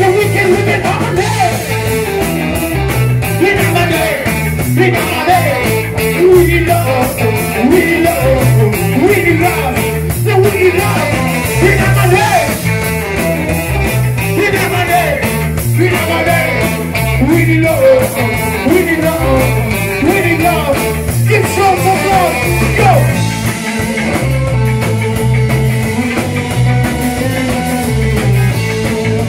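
Live rock band playing: a singer on a microphone over electric guitars, a repeating bass line and a drum kit keeping a steady beat, with saxophone and trombone in the line-up.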